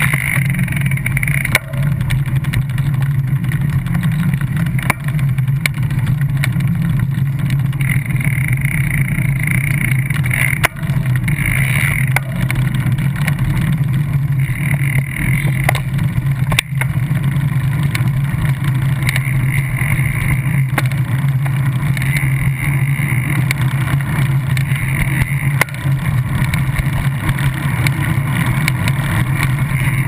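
Steady rolling rumble of a moving bicycle, picked up by a microphone mounted on the wheel's quick-release skewer, with a couple of sharp knocks.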